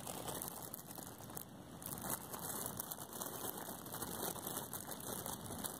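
Light rain falling on the leaf litter and trees of a forest, with wind: a steady hiss with faint scattered ticks.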